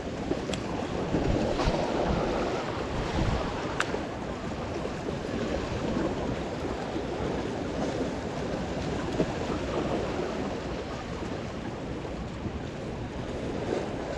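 Small sea waves washing and splashing against the boulders of a rock jetty, a steady surging wash, with wind buffeting the microphone.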